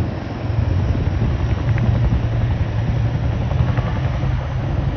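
Two Boeing CH-47 Chinook tandem-rotor helicopters flying past low, the deep rapid beat of their rotors loud and steady.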